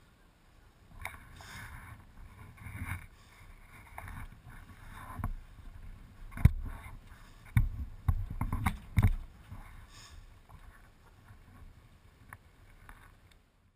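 Water lapping and slapping against a small boat's hull while it drifts, with irregular knocks and thumps against the boat, the loudest about six and a half seconds in and a cluster soon after.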